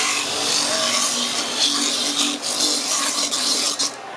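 Hands scraping and scooping freshly grated coconut out of the metal bowl of a coconut grating machine: a rasping noise with a brief dip near the end.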